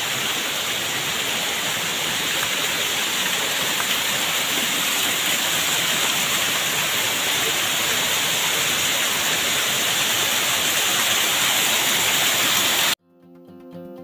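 Steady rushing of water from a waterfall or stream, an even hiss with no rhythm. It cuts off suddenly near the end, and acoustic guitar music begins.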